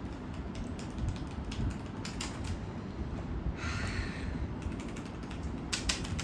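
Kreo Hive 75 mechanical keyboard with red linear switches being typed on: irregular key clicks, thickening into a quick run of keystrokes near the end. A brief rustle about halfway through.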